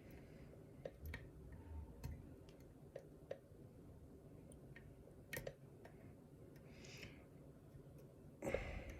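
Faint, scattered ticks and clicks of a hook pick working the pin stack inside a cheap 40mm brass padlock during single-pin picking, with one louder click about five seconds in. The pins give little of the usual feedback, a sign of the lock's sloppy tolerances.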